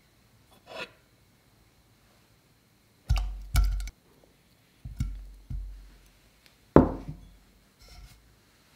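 Cubes of unsalted butter dropped one at a time into a saucepan, a series of soft thuds.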